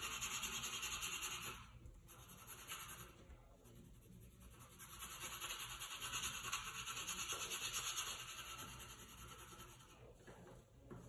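Quick back-and-forth rubbing on drawing paper as the drawing is worked over, strong at first, easing off from about two to five seconds in, then strong again before fading near the end.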